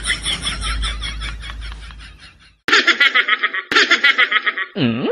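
Laughter: a rapid rhythmic giggle that fades away, then two bursts of fast chuckling that start and stop abruptly. A short swooping tone that dips and rises comes at the very end.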